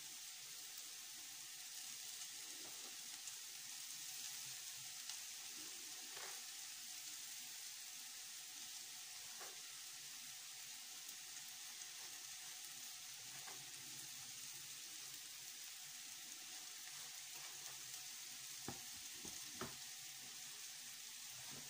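Sliced champignon mushrooms frying in butter in a pan under a layer of grated cheese: a soft, steady sizzle, with a couple of faint taps near the end.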